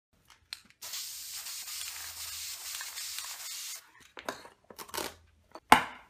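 Aerosol spray paint can hissing steadily for about three seconds, then masking tape and a stencil being peeled off cardboard in several quick rips, the last one the loudest.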